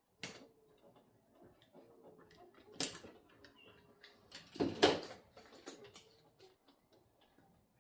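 Tool bag being handled during an unboxing: a few sharp knocks and clatters with light rustling between them, the loudest cluster about halfway through.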